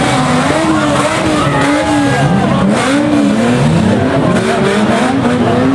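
Several banger-racing cars' engines revving up and down at once, their pitches overlapping, over a steady wash of track noise.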